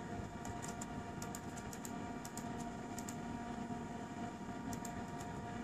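Irregular light clicks of typing on a laptop keyboard, over a steady hum.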